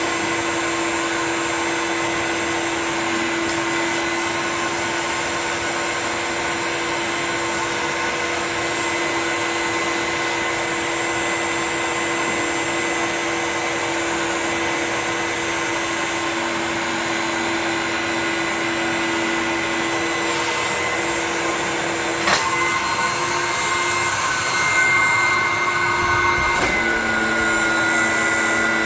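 Dyson DC01 bagless upright vacuum running steadily with a motor whine while vacuuming. About 22 seconds in there is a sharp click, and after it the pitch shifts and the sound gets a little louder.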